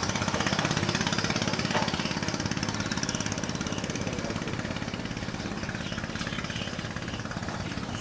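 Long-tail boat engine running steadily with a fast, even chugging pulse, easing slightly toward the end.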